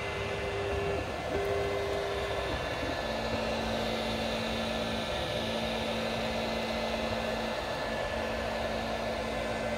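Anycubic Kobra Max FDM 3D printer mid-print: its fans run steadily under a humming motor tone. The tone breaks off and restarts as the print head changes moves, and drops to a lower pitch about three seconds in.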